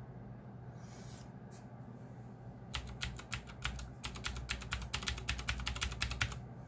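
Typing on a Geekstar DECK Hassium Pro 108 mechanical keyboard with clicky blue switches. A fast run of sharp key clicks starts a few seconds in and stops after about three and a half seconds.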